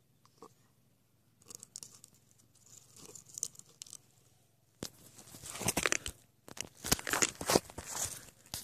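Close rustling and crunching handling noise from a handheld camera moved over gritty ground, faint scattered ticks at first, then louder, irregular crackling from about five seconds in.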